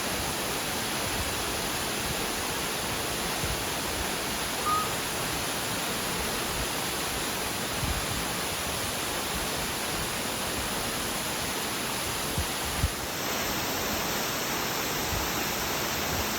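A 90-foot waterfall rushing steadily. Near the end the rush shifts slightly in tone.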